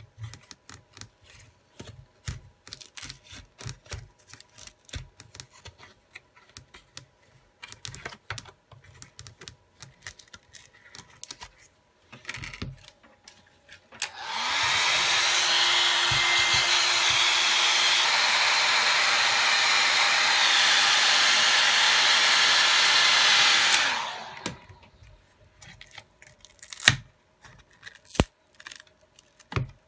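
Light clicks and scrapes of a plastic prying card worked along a phone's back-cover edge. About halfway through, a hot-air blower spins up, runs steadily for about ten seconds heating the back cover to soften its adhesive, then winds down. The clicking and prying resume after it.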